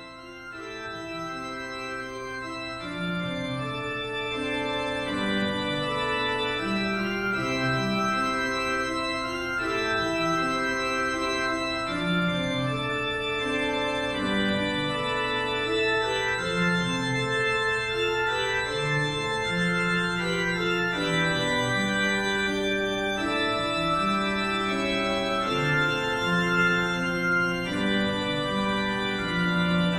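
Organ playing slow, sustained chords with a stepwise moving bass, swelling in over the first few seconds.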